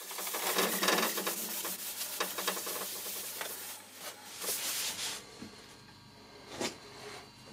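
A paper towel rubbed back and forth over the scraped cast-iron face of a surface plate, wiping it clean. The rubbing stops about five seconds in after a short rustle, and a single light knock follows near the end.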